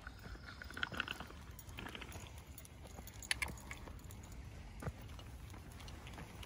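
Footsteps on a dry dirt trail: uneven scuffs and crunches with a few sharp clicks, the loudest about three seconds in.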